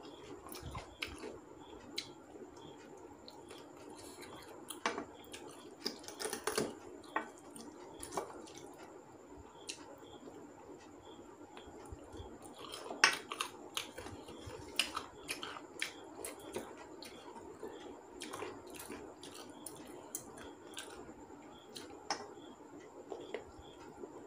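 A person eating chicken curry with their fingers: chewing and lip smacks, with scattered sharp clicks and taps of fingers against a steel plate. The loudest click comes about halfway through.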